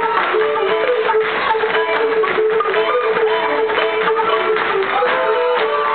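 Lively Irish traditional dance tune with a quick, even beat, over which the dancers' steps tap on the wooden stage.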